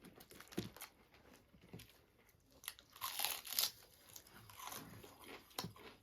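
Close-up eating sounds: a person biting and chewing crunchy food, with scattered small crunches and a louder burst of crunching a little past halfway.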